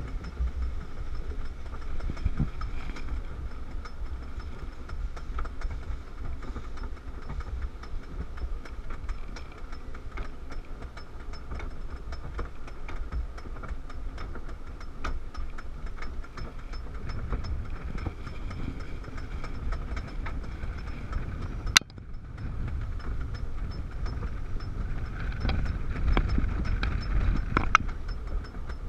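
Wooden roller coaster train climbing its chain lift hill: a steady low rumble of the lift with irregular clicking of the anti-rollback dogs on the ratchet, and one sharp crack about three-quarters of the way through.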